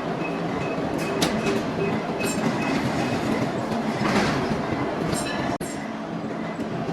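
Heavy workshop machinery running steadily, with a few sharp metallic clicks and a brief drop-out about five and a half seconds in.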